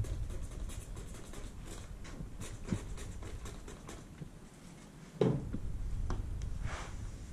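Handling and rubbing sounds of work on bamboo poles on a wooden workbench: a rag wiping, small scattered knocks and clicks, and one louder thump about five seconds in.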